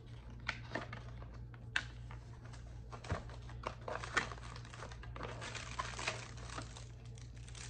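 Hands rummaging in a cardboard camera box: scattered light taps and rustles of paper and card, with a denser stretch of plastic-bag crinkling a little past the middle as a bagged accessory is lifted out.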